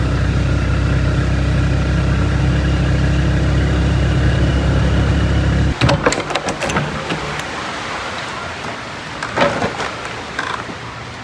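Motor vehicle engine running steadily, with a low, even hum that stops abruptly about halfway through. Street noise follows, with a few knocks and clatters.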